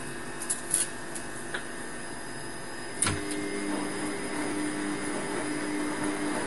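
Steady background hiss with a few light clicks, then a sharp click about three seconds in, after which a steady low machine-like hum continues.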